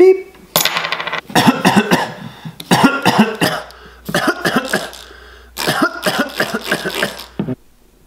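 A man's voice acting out coughing, in four rough coughing fits with short pauses between them, the last one longest. It opens on the tail of a mouthed scanner "beep".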